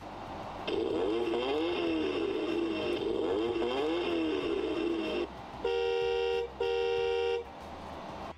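Sound effects from a toy ride-on ATV's handlebar sound module, set off by its dashboard buttons. A recorded engine revs up and down repeatedly for about four and a half seconds, then a horn toots twice.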